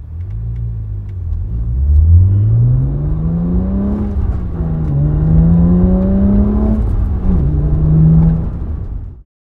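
BMW 3 Series engine through a COBB stainless steel 3-inch cat-back exhaust, heard from inside the cabin, accelerating hard from a standstill. The engine note rises steadily, dips at two upshifts, climbs again each time, and cuts off suddenly near the end.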